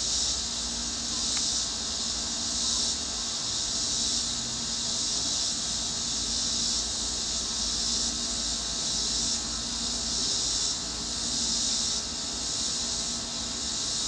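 Chorus of insects: a steady, high-pitched hiss that swells and fades about once every second and a half.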